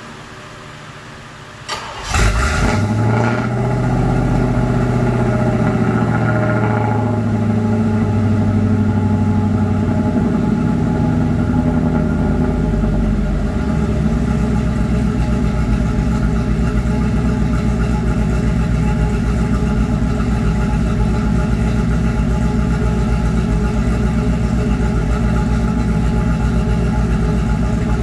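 1986 Camaro IROC-Z V8 starting about two seconds in and idling through 3-inch exhaust and a single Gibson MWA race muffler. It settles from a higher idle down to a lower, steady idle about halfway through.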